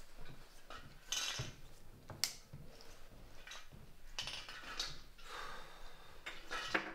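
Rustling and handling noises of a backpack being picked up and slung over a shoulder, with a sharp click a little over two seconds in.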